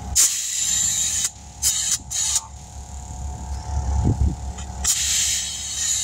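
Compressed air hissing in several short bursts, the longest at the start and near the end, over a steady low hum from running machinery.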